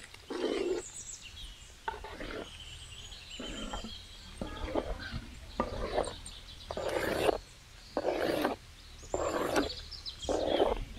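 Long ladles stirring cooked rice into thick sambar in a large aluminium pot: repeated short mixing strokes, about one a second.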